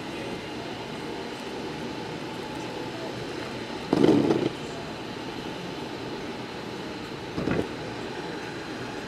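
Steady rolling noise of electric skateboards cruising on asphalt, with two brief louder bursts: one about four seconds in, a shorter one near the end.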